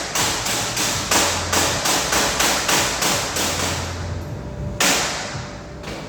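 Hammer striking repeatedly and steadily, about two to three sharp blows a second, then a short pause and one last heavier blow near the end.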